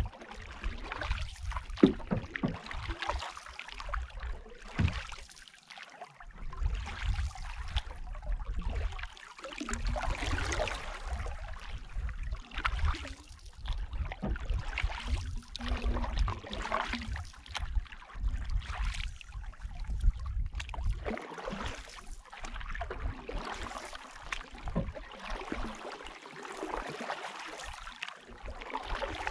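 Canoe paddle strokes pulling through the water, a swish and splash repeating roughly every one to two seconds, with water running along the hull. A sharp knock about two seconds in, and a low wind rumble on the microphone at times.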